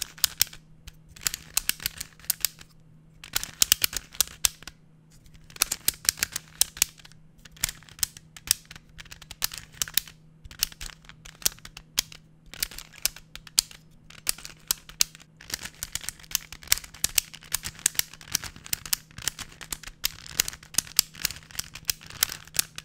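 Pyraminx Duo twisty puzzle being turned rapidly close to the microphone: quick runs of sharp, fairly aggressive clicks from its click mechanism, in bursts with short pauses between. A steady low hum sits underneath.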